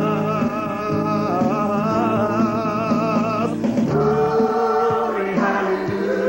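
Gospel song with sung vocals over backing music: one long note held with vibrato, a short break, then a second long held note.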